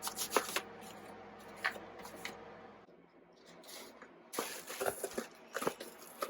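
Plastic dictation discs and their boxes being handled and shuffled: scattered light clicks and rustles, with a brief quiet spell about halfway through.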